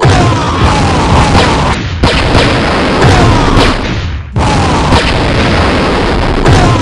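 Loud booming, explosion-like sound effect, cut into three stretches that each start abruptly, about two seconds and about four and a half seconds in, with short falling tones running through it.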